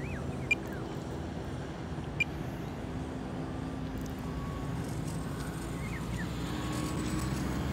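Electric motor and propeller of a HobbyZone Apprentice STOL S 700 mm RC plane on a low flyby: a quiet, steady hum that grows slightly louder toward the end.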